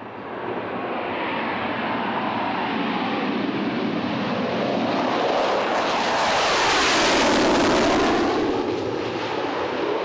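Jet noise from the MiG-29 OVT fighter's twin RD-33 turbofan engines as it flies, building up from the start and loudest about seven seconds in, with a sweeping rise and fall in pitch as the jet passes.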